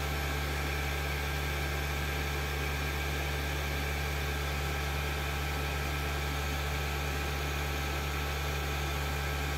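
Steady low hum with a faint hiss over it, unchanging throughout, with no music playing.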